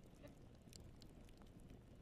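Wood fire in a fireplace crackling faintly: a few soft, sharp pops over a low, quiet rumble of the flames.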